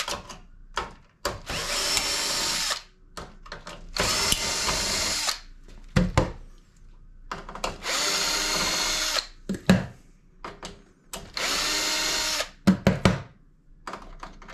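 Cordless drill/driver backing out hinge screws from a stainless range-hood door, its motor running in four short bursts of about a second each. Small metallic clicks and knocks fall in the gaps between bursts.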